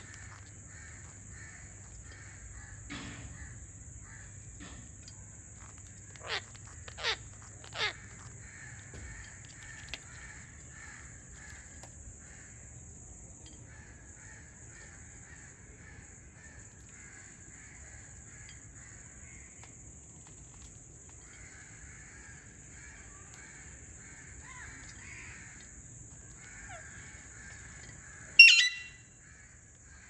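Indian ringneck parakeets calling: three quick falling whistles about six to eight seconds in, over a steady twittering of birds, and one loud, harsh squawk near the end.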